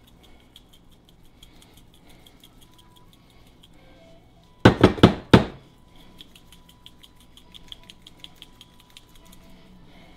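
Onion salt shaken from a seasoning shaker bottle, with a faint fast ticking rattle. About halfway through there is a quick run of four or five sharp knocks as the bottle is banged to loosen salt that has caked and stuck inside.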